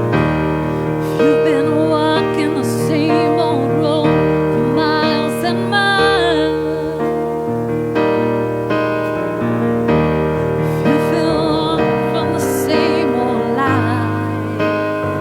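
Church worship music: a piano or electric keyboard plays sustained chords while a singer vocalises wordless runs with vibrato, in two phrases.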